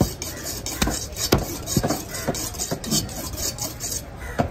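Large knife blade scraping scales off a grouper in quick repeated strokes, about three or four a second, mixed with sharp knocks on the wooden board; the scraping stops about four seconds in.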